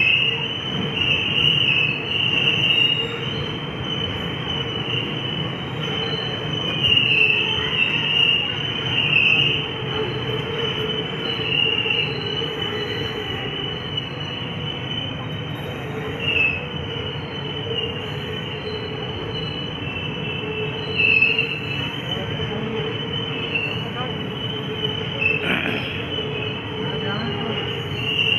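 Passenger train coach rolling slowly through a station, its steel wheels squealing on the rails in a high, wavering tone over a steady running rumble, heard from the open coach doorway.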